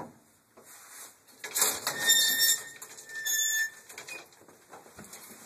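The doors of a vintage Otis cage elevator being worked: two bursts of metal scraping and rattling with a high squeal, about one and a half and three seconds in.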